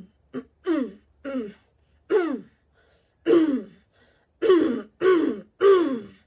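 A young woman's voice making a run of short wordless vocal sounds, each sliding down in pitch, about nine in all with uneven gaps, the later ones longer and louder. It is the opening of her self-made beatbox-and-rap song.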